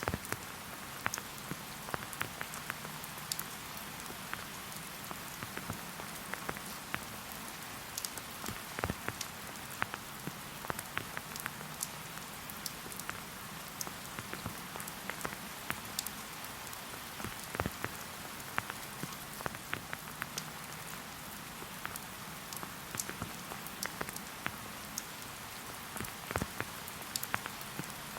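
Steady rain falling in a forest: an even hiss with many separate drops tapping close by, scattered irregularly throughout.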